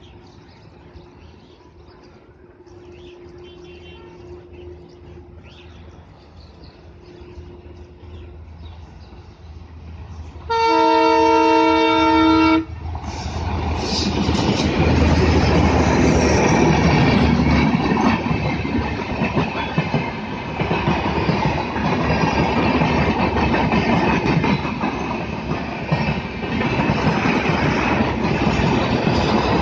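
Indian Railways ALCO diesel locomotive approaching with a faint low rumble that grows, sounding one horn blast of about two seconds, then passing close with loud engine noise. The passenger coaches then roll by with wheels clattering over the rail joints.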